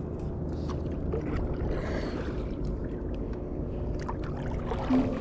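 Kayak moving on a pond: a steady low rumble with scattered faint knocks and small water sounds. Music starts right at the end.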